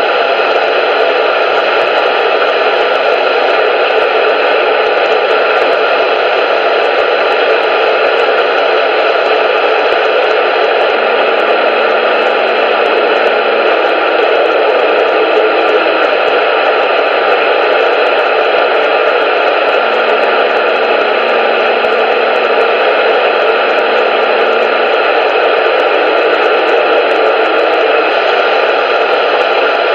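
Steady, loud static hiss like an untuned radio, with a faint low hum coming in briefly twice in the middle.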